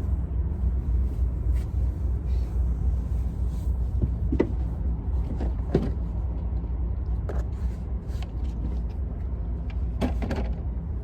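Steady low rumble with a handful of light knocks and bumps scattered through it, typical of a foam bench cushion being handled and pulled out.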